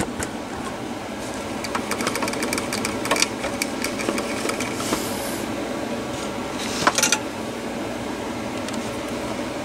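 Clicks and rattles of wires and push-on spade terminals being worked off a 12-volt battery's posts by hand, over a steady hiss. The loudest clicks come about three seconds in and a pair about seven seconds in.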